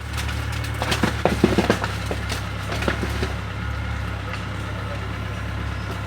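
A bulldozer's diesel engine running steadily while seized liquor bottles and cans are crushed, with a burst of cracking and crunching from about one to three seconds in.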